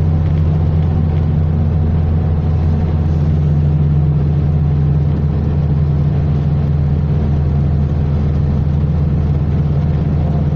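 Car driving at steady highway speed, heard from inside the cabin: a steady low hum of engine and tyre noise.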